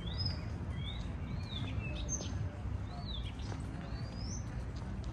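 Small birds chirping: several short calls that rise and fall in pitch, coming about once a second, over a steady low background rumble.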